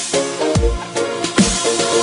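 Electronic dance music with a deep, pitch-dropping kick drum striking about once a second under held synth chords.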